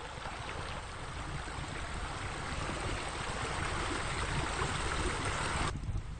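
Running water in a pool, a steady splashing rush that swells a little and then cuts off suddenly near the end, over a low rumble.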